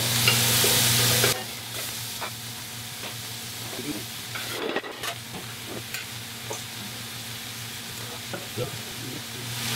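Mushrooms and garlic sizzling and frying in a stainless steel stockpot while a utensil stirs them, with scattered light knocks and scrapes against the pot. The sizzle is loud for about the first second, then drops suddenly to a quieter frying hiss. The mushrooms are browning and giving up their water in the hot pan.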